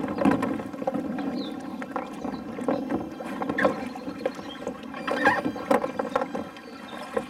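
Plastic kayak hulls knocking, scraping and squeaking against each other as a capsized kayak is hauled up across the deck of a second kayak in a T-rescue, in irregular bumps and rubs.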